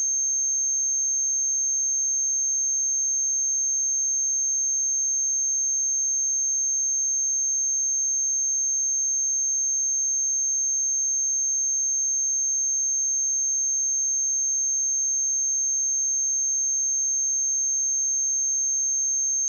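Pure 6368 Hz sine-wave test tone: a single steady, high-pitched whistle that holds the same pitch and level throughout.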